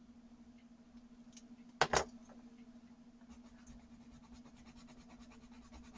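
Derwent Artists coloured pencil scribbling on watercolour paper in quick strokes, several a second, laying down a colour swatch. Two sharp knocks close together come about two seconds in, before the scribbling starts, over a faint steady hum.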